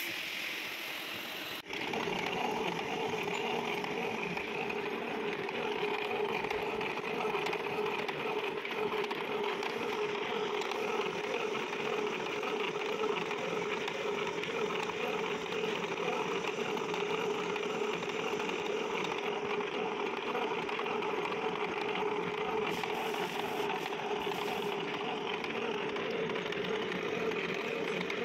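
Milling machine running steadily, its disc-shaped form cutter milling the thread of a steel worm shaft: a continuous mechanical drone with a steady hum, setting in suddenly about two seconds in.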